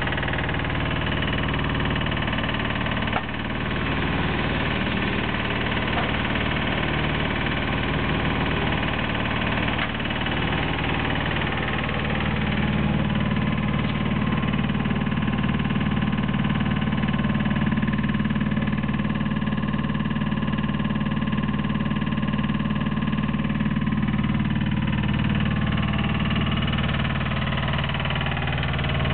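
Engine of a Flow Tex HDS13 horizontal drilling rig running steadily. A single sharp knock comes about three seconds in, and from about twelve seconds in a low hum grows louder.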